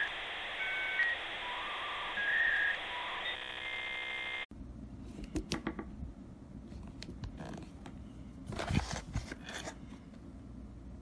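A short electronic intro sound of shifting beeping tones over a hiss, which cuts off abruptly about four and a half seconds in. Then light clicks and rattles of a Master Lock 5401D metal combination lock box being handled, with a quick run of clicks about two thirds through.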